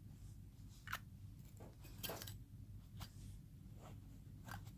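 Faint, scattered small clicks and knocks, about four in all, of a metal arc lighter insert being handled and slid into its Zippo lighter case.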